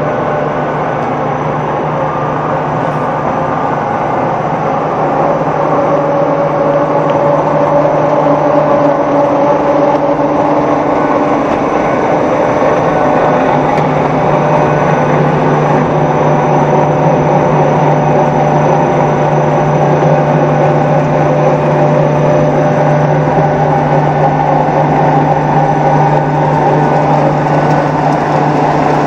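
Fertilizer pellet production line running: electric motors, conveyor and pellet machine giving a steady, loud machinery din with a constant low hum. It grows louder about five seconds in and then holds level.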